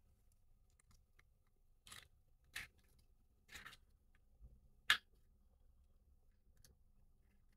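Faint clicks and short scrapes of a plastic pry tool working into the seam of a Joy-Con's plastic shell to pop it open: four brief ones with quiet between, the sharpest about five seconds in.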